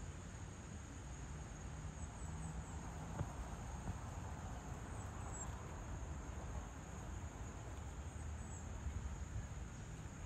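Crickets trilling: a continuous high-pitched drone over a steady low background rumble, with a faint click about three seconds in.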